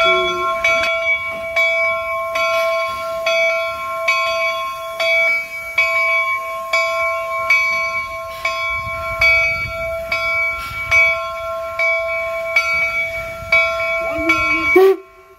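Bell of a replica 4-4-0 steam locomotive ringing steadily, about three strokes every two seconds, cutting off suddenly near the end.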